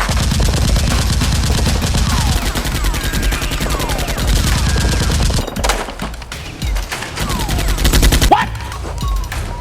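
Rapid automatic gunfire, a long continuous burst for about five and a half seconds, then a shorter burst near the end, with short falling whistles mixed in.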